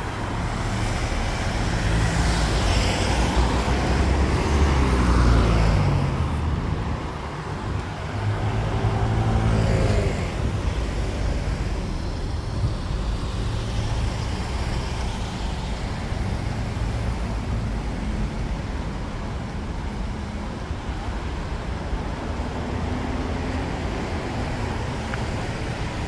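Road traffic: a steady rumble of passing vehicles, with two louder engines going by close in the first ten seconds, their notes shifting in pitch as they pass.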